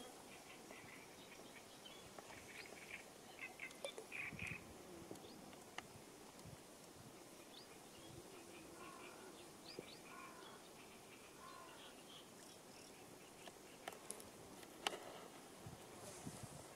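Quiet outdoor ambience with faint, scattered bird chirps and an occasional soft click.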